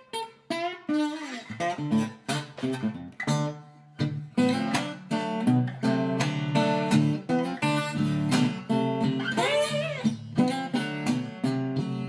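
Guitar music: plucked, picked notes over a steady low line, with several notes bending up and down in pitch.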